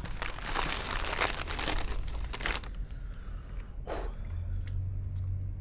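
Plastic packaging crinkling and rustling as it is handled for about two and a half seconds. Then one short, soft sound follows about four seconds in.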